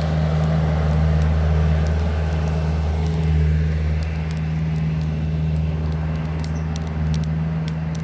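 A steady low engine-like hum runs throughout without change, with scattered light crackling clicks from wood burning in the grill, more of them in the second half.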